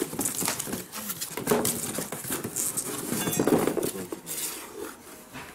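Cardboard box scraping and rustling as an electric burnishing machine is unpacked and lifted out, with scattered knocks and clinks of the tool and its cord against the box.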